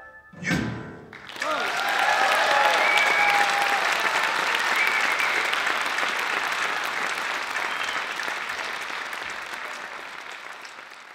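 A live band's final chord, cut off short, followed by an audience applauding with a few cheers. The applause fades out near the end.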